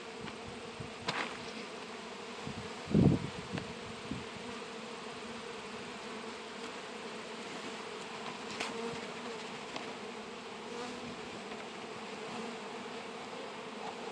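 Honey bees buzzing in a steady hum around an open hive and a frame covered in bees. A single dull thump about three seconds in.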